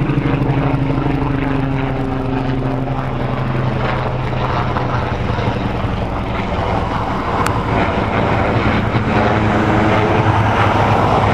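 Helicopters flying over: a steady rotor chop with a low engine drone, dipping slightly midway and growing louder toward the end.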